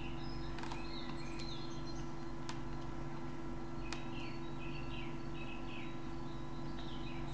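Computer keys clicking a few times, one as Ctrl is pressed about four seconds in, over a steady low hum. Short high chirps come and go in the background.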